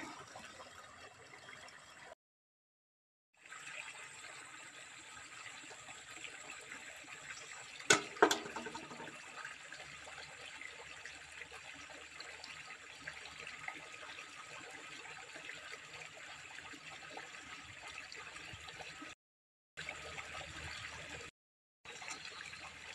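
Water trickling steadily in a concrete drain, with a faint steady high tone above it. Two sharp knocks come in quick succession about eight seconds in, and the sound cuts out briefly three times.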